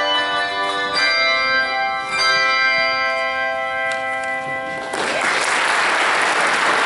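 Handbell choir ringing its final chords, the bells sounding long sustained tones with fresh strikes about one and two seconds in. The ringing gives way to audience applause about five seconds in.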